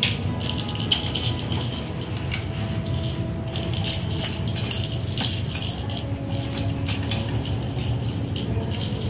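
Background music with bright jingling, tambourine-like percussion.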